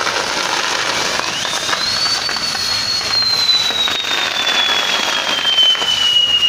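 Castillo fireworks tower burning: the steady hiss and crackle of its fountains and spinning pieces. A long whistle rises about a second in, then slowly falls in pitch.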